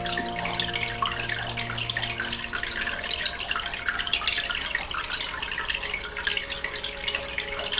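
Aquarium water bubbling steadily, a dense fizzing and trickling of air bubbles rising through the tank water. Soft held music notes fade out in the first few seconds, and a new note enters near the end.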